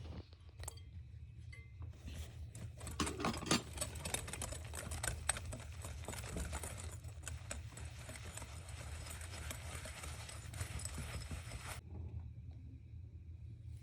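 A spoon stirring cake batter briskly in a mug, with rapid clinking and scraping against the sides, stopping about twelve seconds in. A low steady hum runs underneath.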